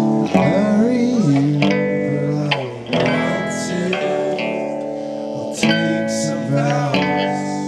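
A live band playing, electric guitar chords to the fore through an amplifier, the chords struck anew several times.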